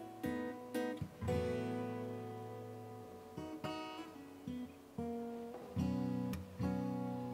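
Background music: an acoustic guitar playing a slow run of plucked chords, each ringing out and fading before the next.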